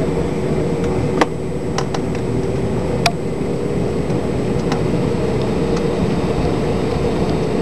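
Cabin noise of an Airbus A319 climbing out after takeoff: a steady rush of engine and airflow noise with a steady hum. Two sharp clicks come about one and three seconds in.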